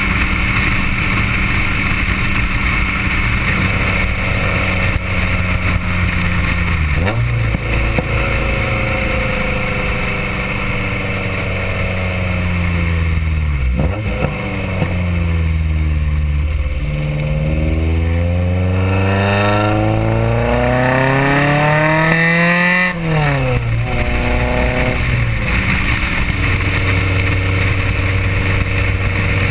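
Honda B16A VTEC four-cylinder engine running through a Private Label Racing 4-1 header, test pipe, resonator and SLP Loudmouth muffler to a sidepipe, heard close to the outlet while driving. The note holds steady, drops about seven seconds in and sags lower. From about halfway it climbs steadily for several seconds, then falls sharply and settles into a steady cruise.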